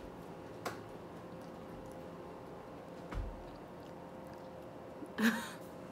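Quiet kitchen room tone with a faint steady hum, broken by a small click, a low bump a little after three seconds in, and a brief louder rustle near the end, the loudest sound here.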